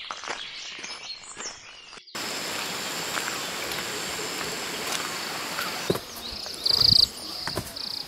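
Footsteps on a dirt path for about two seconds, then an abrupt change to a steady outdoor hiss with a constant high insect buzz. Near the end come a few footfalls and one brief, loud, high trill.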